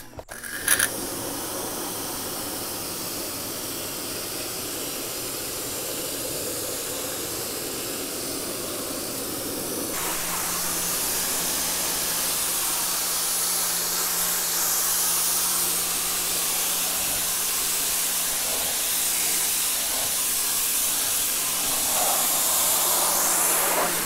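PAXCESS 2150 PSI electric pressure washer spraying at high power: a steady hiss of the water jet striking wooden deck boards. About ten seconds in the spray sound shifts and a low steady hum joins it.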